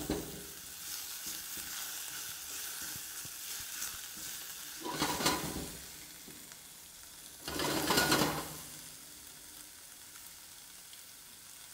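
Prawn shells and meat with diced vegetables sizzling in oil in a saucepan as they brown, with two louder surges of sizzling about five and eight seconds in.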